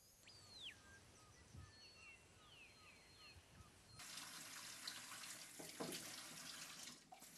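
Faint birds chirping, with short repeated calls and falling whistles. About four seconds in, water from a kitchen tap starts running into a sink over hands and a piece of fruit being rinsed.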